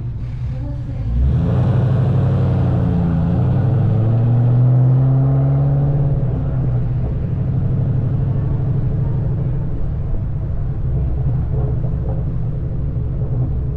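2003 Mustang SVT Cobra's supercharged 4.6-litre V8 through an SLP Loudmouth exhaust. About a second in, the throttle opens and the engine note climbs in pitch for several seconds under acceleration, then eases off and runs on steadily.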